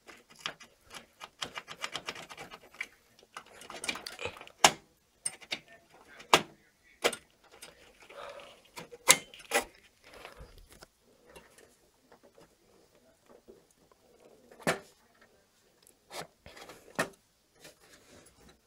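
Hands handling and prying at the parts of an old desktop computer's motherboard: scattered sharp clicks and knocks, with rustling and scraping between them.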